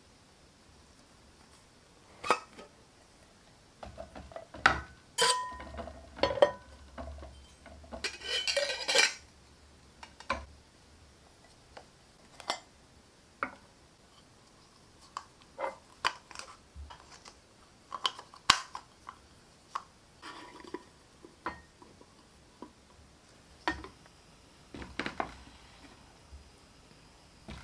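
A stainless steel Stanley Adventure Happy Hour cocktail shaker being taken apart and handled: scattered metal clinks and taps as its cap and cup are set down on a wooden slat table. About eight seconds in comes a quick run of rattling clicks lasting about a second.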